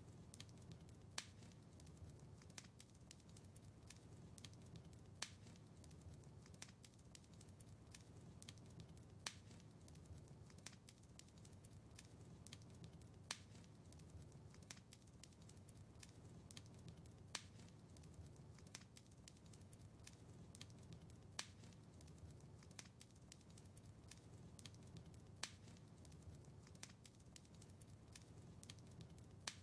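Wood fire crackling faintly: frequent small crackles with a sharper pop about every four seconds, over a soft low rumble of the flames.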